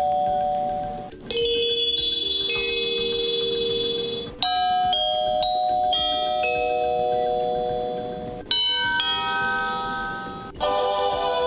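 Honeywell Decor wired door chime (RCW3506N) playing its selectable chime tunes in turn. Each is a short melody of clear electronic bell-like notes, and a new tune starts abruptly about a second in, again past four seconds, past eight and past ten.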